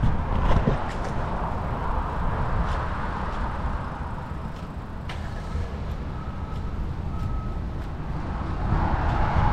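Road traffic noise and wind rumble on the microphone of a camera riding along on a bicycle, with traffic growing louder near the end.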